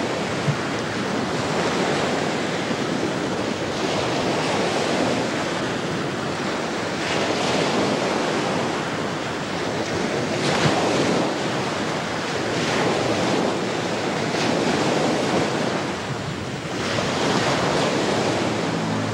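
Churning, foaming sea water rushing steadily, surging in swells every two to three seconds, with wind.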